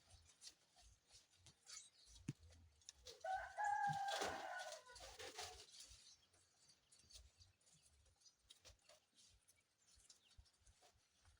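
A rooster crows once, starting about three seconds in and lasting over two seconds, among faint scattered clicks.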